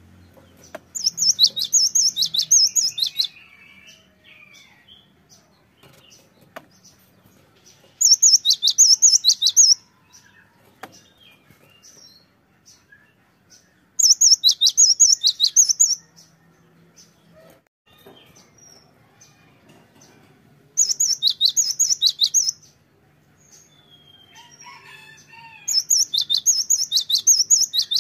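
Cinereous tit (gelatik batu) singing: five loud bouts of fast repeated high notes, each about two seconds long and several seconds apart, with soft calls in between.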